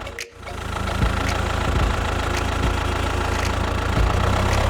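Vehicle engine running steadily at idle, a low even hum, broken by a brief dropout just after the start.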